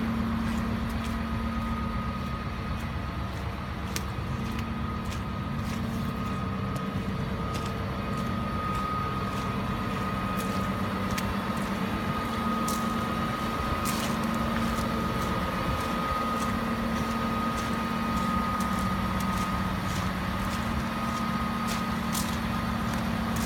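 Komatsu HM300-3 articulated dump truck's diesel engine running steadily as the truck drives slowly, with a steady whine over the engine hum and scattered light clicks.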